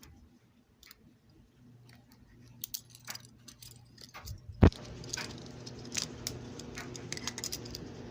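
Smith & Wesson chain handcuffs being handled: metal links jingling and clicking, with one loud knock about halfway through and a busier run of clicks after it, over a low steady hum.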